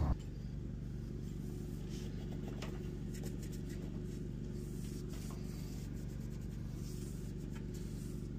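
Microfiber rag rubbing along an aluminum window track, faint scuffs and light ticks over a steady low hum.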